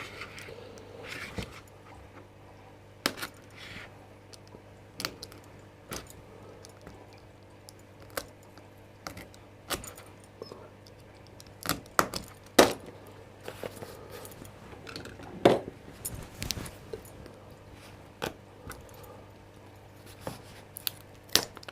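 Scattered small clicks and light metal taps, irregularly spaced, as a handmade lock pick is unwrapped and handled on a desk, over a faint steady hum.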